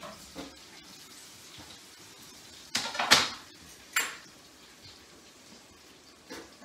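Kitchen utensils and cookware being handled: a brief clatter about three seconds in, then a single sharp clink a second later, over a faint steady background.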